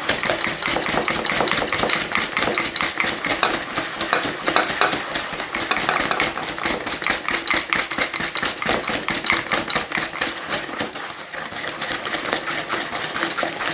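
Wire whisk beating a thick egg-yolk, sugar and ground-almond batter in a glass bowl by hand, in rapid, steady strokes with the wires clicking against the glass. The mixture is being beaten until it turns pale.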